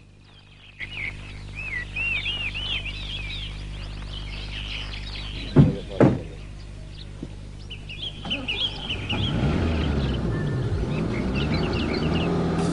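Birds chirping, then two sharp thumps about five and a half and six seconds in, a car door being shut. From about eight seconds in a car engine starts up and runs as the sedan moves off.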